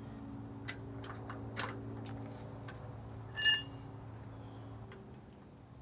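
Lug wrench turning lug nuts on a truck wheel: scattered metal clicks and, about halfway through, one louder ringing clink of metal on metal. Under it a steady low hum fades out near the end.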